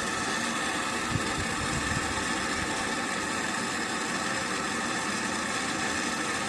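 Handheld torch flame burning with a steady hiss as it heats the spare-tire lock bolt to melt the plastic that holds it.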